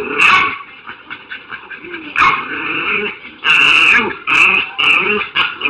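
Dog whining and grumbling in a series of short vocal bursts, about half a dozen, each rising and falling in pitch.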